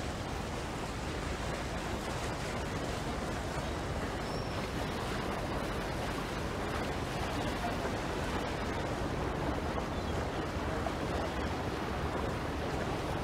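Steady rushing noise of wind and sea, with no breaks or distinct events.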